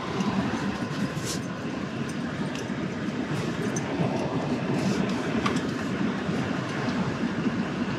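Car cabin noise while driving slowly: a steady low rumble of tyres and engine, with scattered light clicks and ticks.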